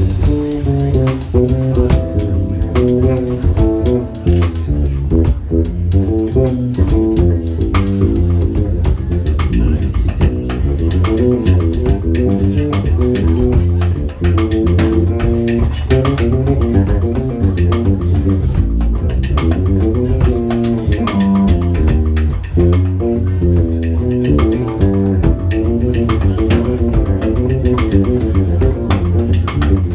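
A jazz quartet playing live, with the bass well to the fore and busy, quick-moving notes over the drum kit.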